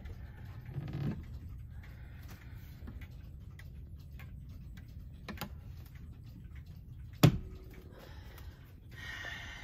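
Pendulum wall clock ticking with faint, separate clicks as its pendulum swings, with one sharp knock about seven seconds in.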